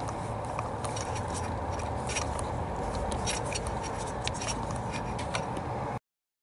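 Scattered light metallic clicks from a socket wrench and extension tightening a new spark plug in its well, over a steady low hum. The sound cuts off about six seconds in.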